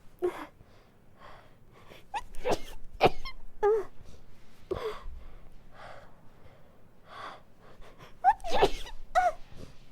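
A woman sneezing repeatedly in a sneezing fit, with hitching, gasping in-breaths between the sneezes. The loudest sneezes come about three seconds in and near the end.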